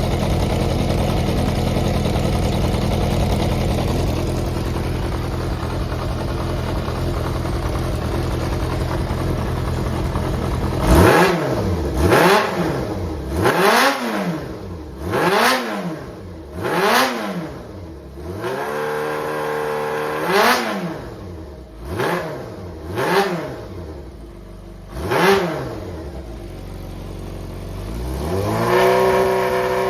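Yamaha XJR400's air-cooled inline-four engine idling steadily, then blipped sharply about nine times, each rev rising and falling straight back, before being held at a steady raised speed near the end. It runs cleanly with no abnormal noise, sold as a healthy engine in excellent running condition.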